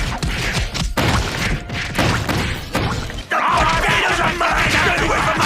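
Fight sound effect: a rapid run of punch-like thuds, whacks and crashes. About three seconds in it turns into a denser, busier mix with wavering pitched sounds layered over the blows.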